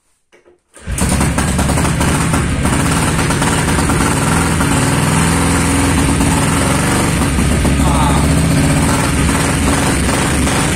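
Junak M10's single-cylinder four-stroke engine kick-started, catching on the first kick about a second in. It then runs steadily.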